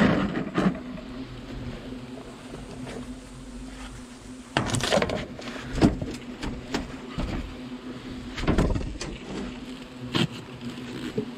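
Angry European hornets buzzing around their disturbed nest, a steady hum, with several knocks and rustles from climbing and handling at the wall, the loudest about five and eight and a half seconds in.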